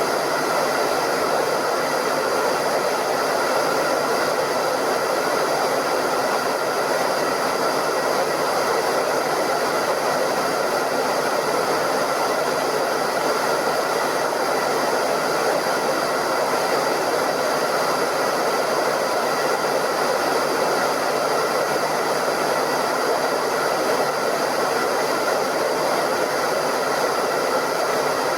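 Hairdryer running steadily: an even rush of blown air with a faint high whine from its motor, unchanging throughout.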